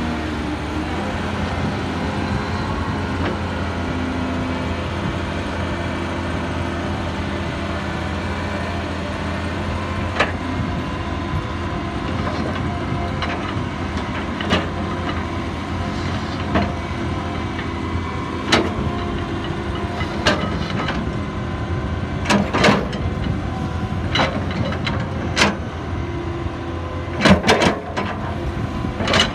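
Caterpillar 320 hydraulic excavator's diesel engine running steadily as the machine digs. From about ten seconds in, a series of sharp knocks and clanks come from the bucket and its linkage working the dirt, the loudest near the end.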